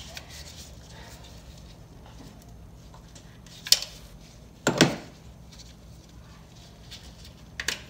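Hand tools under the hood, a wrench clinking against metal: a sharp clink about three and a half seconds in, a heavier clank a second later, and a couple of light clicks near the end.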